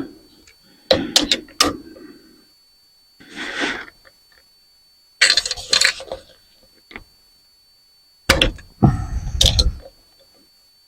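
Metal ceiling-fan parts clinking and clattering as the fan is taken apart by hand, in several separate bursts with a short scrape between them. The heaviest knock comes about eight seconds in.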